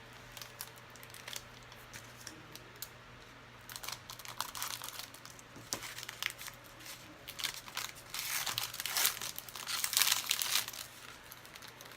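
Foil trading-card pack wrapper crinkling and being torn open, starting about four seconds in and busiest near the end.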